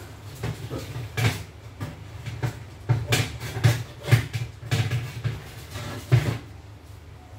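Irregular knocks and light clatter of things being handled in a kitchen, about a dozen in all and loudest in the middle, over a low steady hum.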